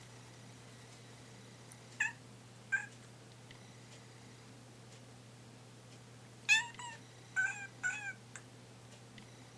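Young orange-and-white cat meowing in short, pleading calls: two single meows, then four in quick succession, the first of the four the loudest. The cat is begging to have the way out opened for it.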